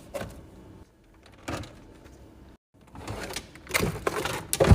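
Packaged groceries being set into a refrigerator: a few light knocks of plastic containers, then a busier run of sliding and knocking near the end.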